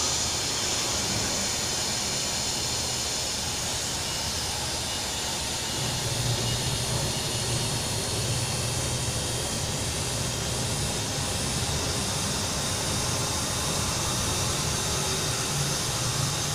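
CNC foam cutting machine running with a steady mechanical whir. A low hum underneath grows a little stronger about six seconds in.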